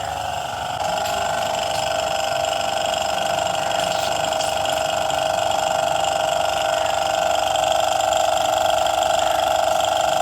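A small power tool's motor running steadily with a high whine, getting a little louder about a second in.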